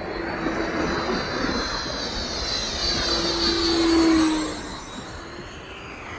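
Dynam Meteor V3's 12-blade 70 mm electric ducted fan whining at speed on a close pass. It builds to its loudest about four seconds in, then drops in pitch and fades as the jet goes by.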